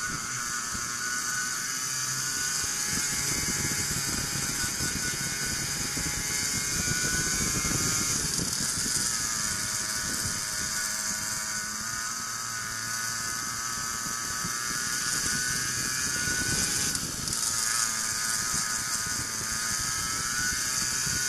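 Racing go-kart engine at high revs, heard from onboard with wind hiss on the microphone; its whine drops twice as the kart slows for corners and climbs again on the straights.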